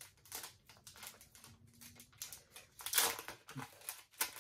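Foil Pokémon card booster pack crinkling as it is cut with a knife and pulled open, a run of short rustles with the loudest about three seconds in.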